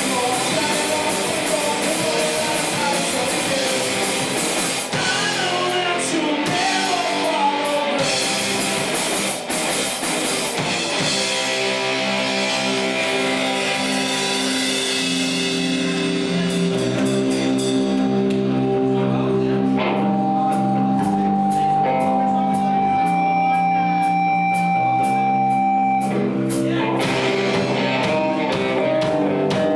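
Live rock band playing: electric guitars, bass and drum kit. About ten seconds in, the drums and cymbals fall away, leaving sustained guitar chords and a long held high note. The full band comes back in near the end.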